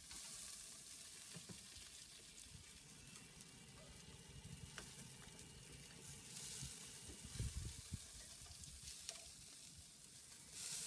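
Mayonnaise-coated chicken breasts sizzling on the hot grate of a ceramic kamado grill, with a few faint clicks of metal tongs as the pieces are turned.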